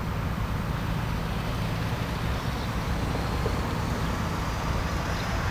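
Steady outdoor background noise: a low rumble and hiss with a faint hum, holding an even level with no distinct events.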